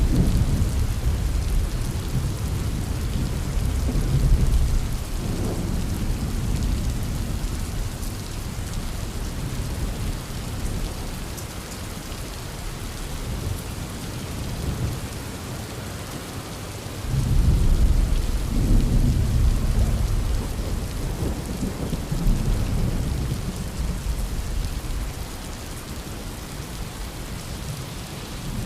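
Heavy rain falling steadily while thunder rumbles on and off, swelling to loud peals near the start and again about two-thirds of the way through.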